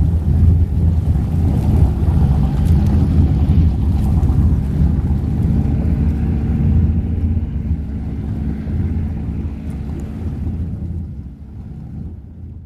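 Inboard engine of an antique varnished mahogany runabout running at low speed as the boat passes close by, a steady low engine note that fades over the second half as the boat moves away.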